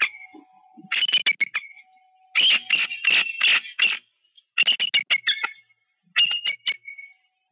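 Bald eagle calling: four quick series of sharp, high-pitched chittering notes with short pauses between them.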